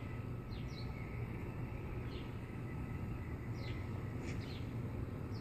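Birds chirping now and then, short falling chirps, over a steady low background hum.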